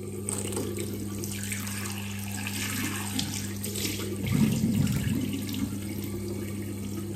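Bathroom tap running water into a sink during face washing, a little louder for a moment just past halfway.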